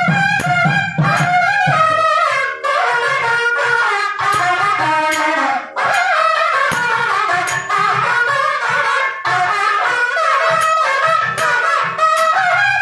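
Nadaswarams playing a Carnatic melody together, a loud reedy line that bends and ornaments its notes. Thavil drum strokes run beneath it, dense and heavy in the first two seconds, then sparser.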